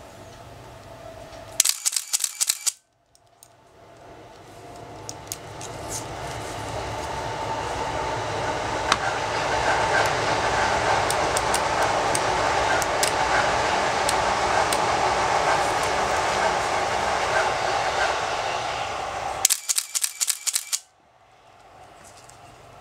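Nikon F3 with MD-4 motor drive firing a rapid burst of about eight frames in just over a second, shutter and film advance clicking in quick succession; a second identical burst comes near the end. Between the bursts a steady rushing noise builds up over several seconds and then holds.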